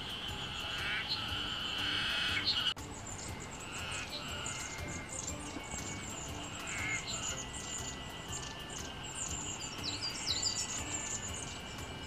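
Many high, thin chirps from small songbirds. A steady buzzing drone runs underneath at first and cuts off abruptly a little under three seconds in.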